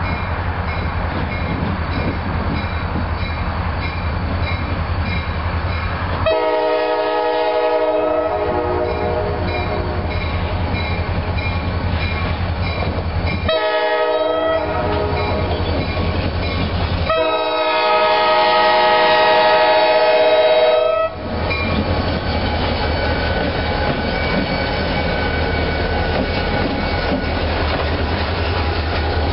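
EMD SD40 diesel locomotive approaching a grade crossing, its engine rumbling steadily as it sounds its multi-chime air horn three times: a blast of about two seconds, a short one, then a longer one of about four seconds, the crossing warning. After the horn the train rolls on with wheels clattering over the rail joints.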